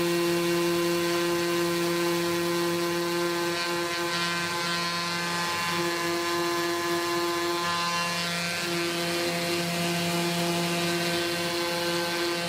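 Electric random orbital sander running steadily as it sands a wooden box, giving a constant motor hum with a gritty sanding noise.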